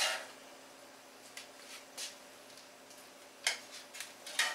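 Metal tongs clicking and tapping against a cast-iron skillet as thick rib eye steaks are lifted out onto a board: a few scattered clicks, then a longer scraping clatter near the end.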